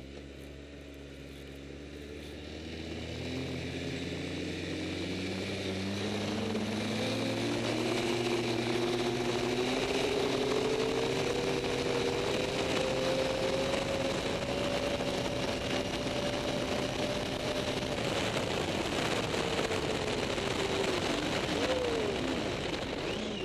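Snowmobile engine accelerating, its pitch climbing for the first several seconds and then holding steady at speed. Near the end it briefly eases off and picks up again. A steady rushing noise runs underneath.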